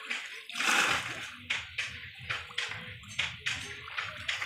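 Pond water splashing and sloshing as a conical bamboo plunge basket is worked down through shallow water by hand. It comes as a run of short splashes, with the loudest about a second in.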